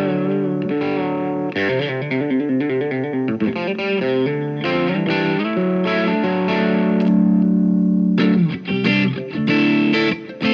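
Electric guitar played through a Vox AC15C1 valve amp in a just-off-clean tone, lightly broken up by a Nobels overdrive pedal set to very low gain. Ringing chords give way to a quick run of picked notes, then a long held note, then short choppy strummed chords near the end.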